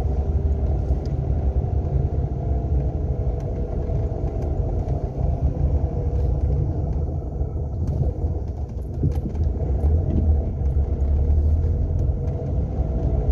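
Renault Sandero driving along, with a steady engine and road rumble and a faint hum of several steady tones above it.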